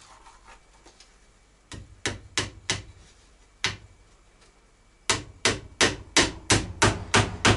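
Hammer driving nails into wooden battens. First a few spaced blows, then from about five seconds in a steady run of about three blows a second.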